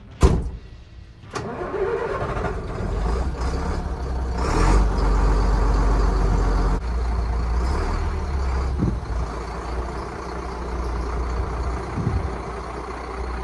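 A lorry cab door shuts with a bang, then about a second later the Volvo tipper lorry's diesel engine starts. It runs with a deep steady hum, picks up briefly about four seconds in, and keeps running as the lorry pulls forward.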